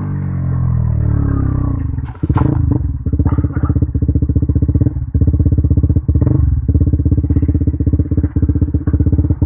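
KTM Duke 200's single-cylinder engine through an Akrapovic exhaust, its revs falling as the bike slows. About two seconds in it settles into an even, rapid idle thump, and it cuts off right at the end.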